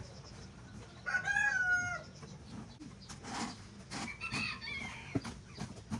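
A rooster crowing once, for about a second, followed about four seconds in by a shorter, higher call.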